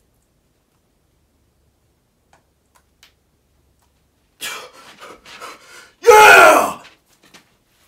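Near silence, then hard breathy exhales and a loud, short yell about six seconds in: a man's effort cry as he stands up and locks out a heavy dumbbell bent press.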